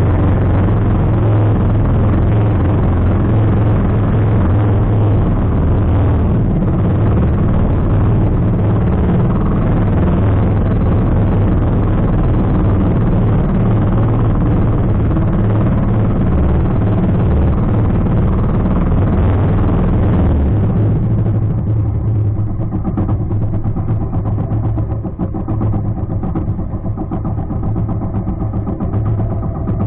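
Engine of a motorized outrigger fishing boat running steadily under way, mixed with the rush of water and wind. About two-thirds through the rushing noise drops away and the level eases, leaving the engine's steady hum.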